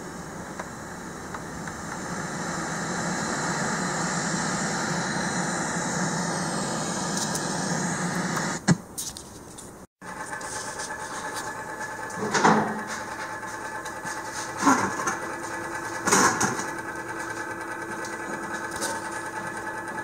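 Philips AZ2765 stereo's radio tuned to 87.5 FM, giving out static hiss that grows louder over the first few seconds, then a sharp click as it is switched off about nine seconds in. After that, an old metal box fan runs with a steady motor hum, with three brief louder noises.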